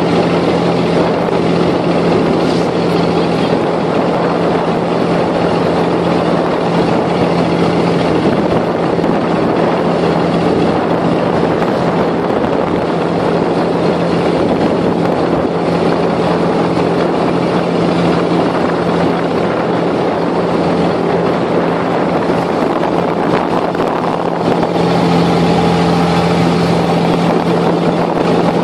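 Abra water taxi's inboard diesel engine running steadily under way: a constant low drone over a haze of water and wind noise. The drone grows a little louder and fuller about 25 seconds in.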